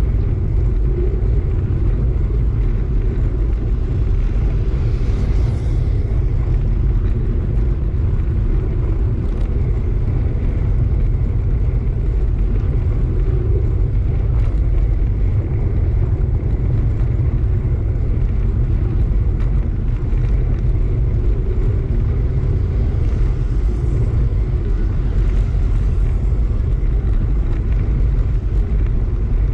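Steady wind rumble buffeting the microphone of a camera mounted on a moving bike, with tyre noise from the concrete road underneath.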